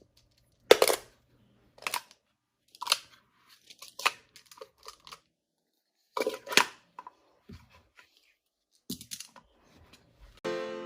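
Handling sounds: short scattered rustles, scrapes and knocks of a cardboard box and toys being moved, about half a dozen separate bursts with quiet between. Music comes in just before the end.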